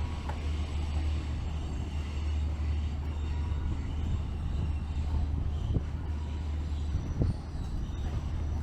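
Wind buffeting the microphone as a steady low rumble over the noise of a city street, with a couple of short knocks about six and seven seconds in.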